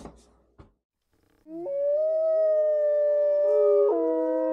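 Wolf howl: a long, steady held howl begins about one and a half seconds in and shifts pitch about four seconds in.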